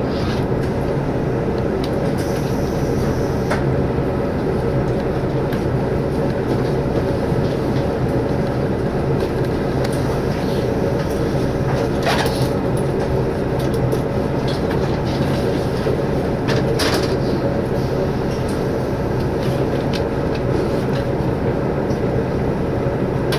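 Cabin noise of a diesel limited-express railcar under way: steady engine and running noise, with a few short sharp clicks, notably around twelve and seventeen seconds in.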